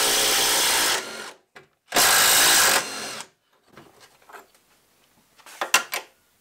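Cordless DeWalt power tool running in two steady spells, the first stopping about a second in and the second lasting about a second from two seconds in. A few light clicks of handling follow near the end.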